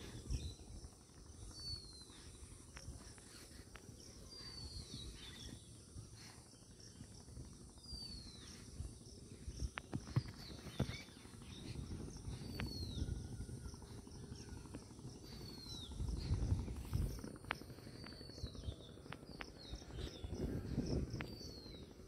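A bird repeats a short, clean call that falls in pitch, about every two to three seconds. Behind it run a steady high hiss and a low rumbling noise that swells near the middle and again near the end.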